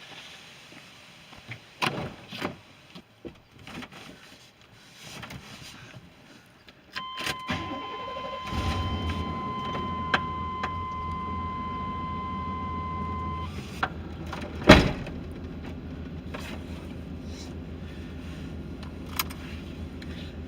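A car being started: a few clicks and knocks, then a steady electronic warning tone for several seconds while the engine starts about eight seconds in and settles into a steady idle. A loud single thump comes about fifteen seconds in.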